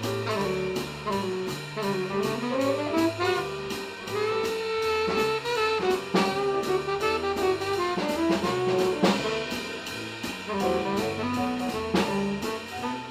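Jazz music with horns over a drum kit and bass: melodic lines over a stepping bass line and a steady cymbal beat.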